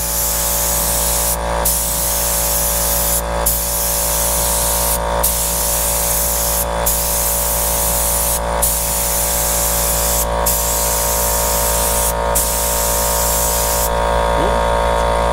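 Gravity-feed paint spray gun hissing as it lays down clear coat, in passes of under two seconds broken by short gaps where the trigger is let off between strokes. The hiss stops about a second before the end, leaving a steady hum underneath.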